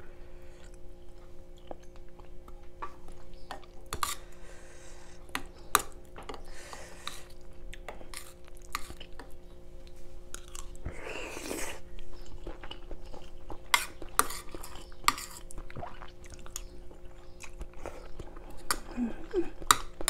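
Close-miked chewing while eating coconut curry, with sharp clicks of a metal spoon against a wooden bowl scattered throughout and a longer noisy sound about eleven seconds in. A steady low hum runs underneath.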